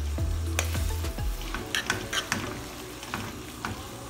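Spoon stirring spaghetti through sizzling tomato sauce in a caldero, with scattered clicks and scrapes of the spoon against the pot over a steady frying sizzle. A low hum sounds in the first second or so.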